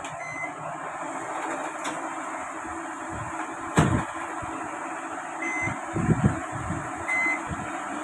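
Microwave oven control panel beeping: three short high beeps as the repaired oven is powered up and its keys are pressed, showing its control board has power. A sharp click about four seconds in and a few low knocks of handling.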